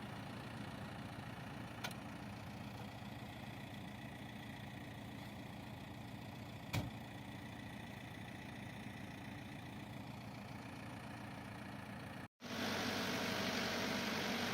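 Diesel engine of a JCB backhoe loader running steadily, with two short knocks about 2 and 7 seconds in. After a brief cut near the end the engine sounds louder.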